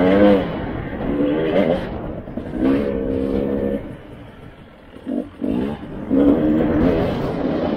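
Dirt bike engine heard from the rider's own bike, revving up and down with the throttle and gear changes. About four seconds in the throttle drops off and the engine goes quiet, with a couple of quick blips, before it pulls hard again.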